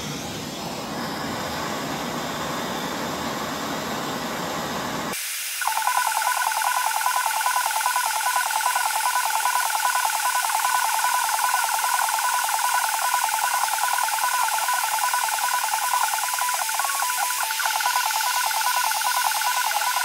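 Hand-held gas torch flame hissing while brazing a wire frame. About five seconds in the sound cuts to a louder hiss carrying a steady, wavering whistle.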